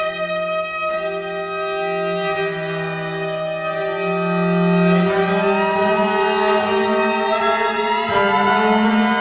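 Violin, cello and double bass playing together with the bow: long held notes, then from about halfway several lines sliding up in pitch as the sound grows louder.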